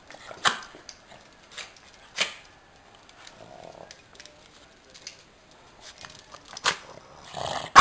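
Boston terrier shaking and dragging a cloth across a tile floor: a few sharp clicks and scuffs, then a short louder burst near the end.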